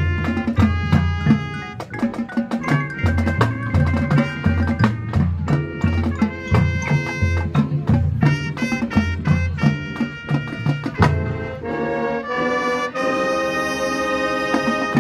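Marching band playing: brass and drumline hitting short, punchy notes together, then the brass settles into a long held chord near the end.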